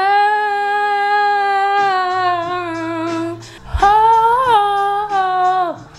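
A woman singing two long, wordless held notes: the first steady for about three and a half seconds, the second shorter, wavering up briefly in the middle.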